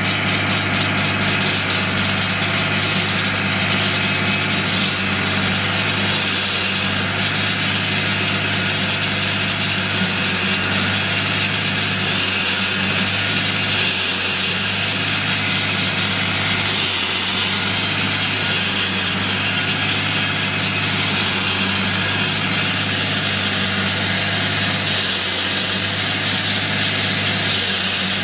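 Diesel engine of a JHD-900 walk-behind concrete saw running steadily, with an even hum and a constant hiss.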